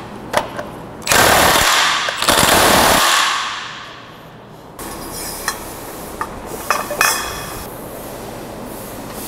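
Cordless impact wrench hammering on the crankshaft pulley bolt of a BMW N62 V8, a bolt torqued to nearly 180 Nm. It runs in two loud bursts of about a second each, starting about a second in, and is followed by a few short metallic clinks.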